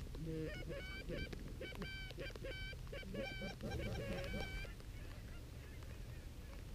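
Canada geese honking: many short honks in quick succession, stopping about five seconds in.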